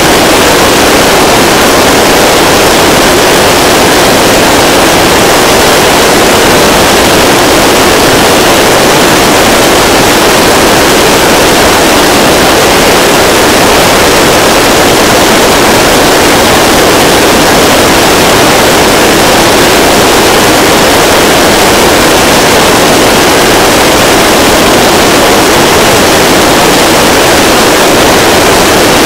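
Korean launch vehicle's 75-tonne-class kerosene–liquid-oxygen rocket engine firing at full thrust on a static test stand, during its 145-second full-duration test burn: a steady, very loud rushing noise that does not change.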